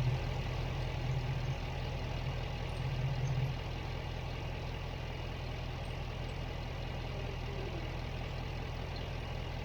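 Jeep Wrangler engine idling steadily while warming up after a thermostat replacement, a little louder for the first few seconds and then even.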